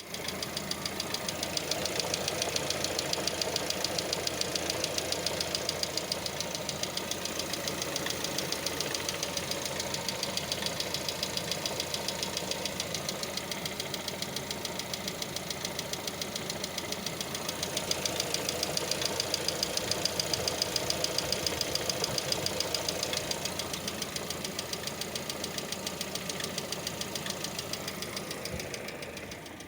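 Lada Vesta engine idling with a regular ticking of several clicks a second from its hydraulic valve lifters. This is the lifter knock that comes on while the engine warms up and at times goes away once it is warm.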